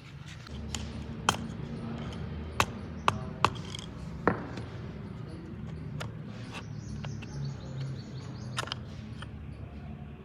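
Hand tools knocking on metal parts: about six sharp, irregular taps and clinks over a steady low hum.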